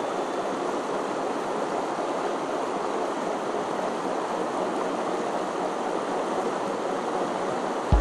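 A small mountain stream's water rushing steadily over rocks, an even hiss with no breaks.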